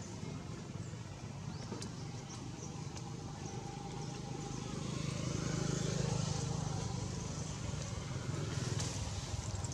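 Low, steady engine rumble that swells to a peak about six seconds in and then eases off, like a motor vehicle going by.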